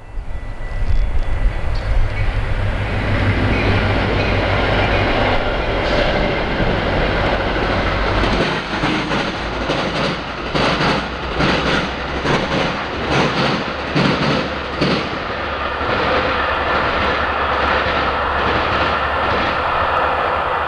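Metra commuter train of stainless-steel bilevel coaches passing close by at speed. A low rumble for about the first eight seconds gives way to a rapid, uneven run of wheel clacks as the trucks cross the rail diamond, from about eight to fifteen seconds in, then a steady rolling hiss.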